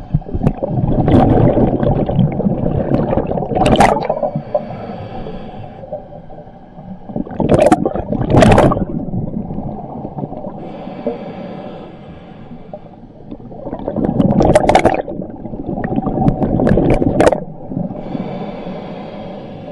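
Scuba diver breathing through a regulator underwater: three long bursts of exhaled bubbles, each followed by a shorter hiss of inhaling, in a slow, even cycle.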